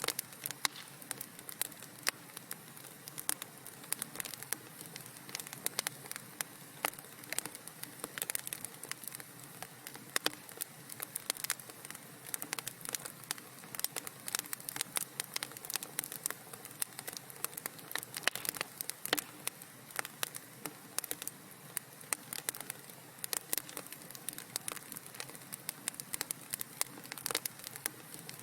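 Wood fire crackling in a fireplace: many irregular pops and snaps over a soft steady hiss.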